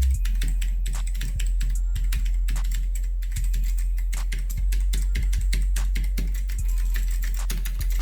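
Typing on an HP GK100 mechanical keyboard with blue switches: a fast, irregular run of sharp key clicks, several a second. A steady low hum runs underneath.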